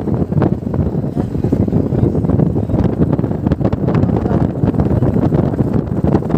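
Wind rushing over the microphone of a moving motorcycle, a steady loud rumble with the bike's engine and road noise underneath.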